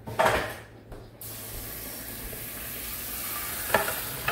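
Short clatter, then about a second in a kitchen tap turns on and water sprays steadily into a stainless steel saucepan of cut red potatoes in the sink, filling it to cover them. The running water grows slowly louder as the pan fills, with a couple of light clinks near the end.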